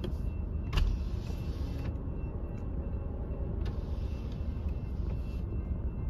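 Steady low rumble of a stationary car idling, heard from inside its cabin. A sharp click comes just under a second in, followed by two stretches of hiss.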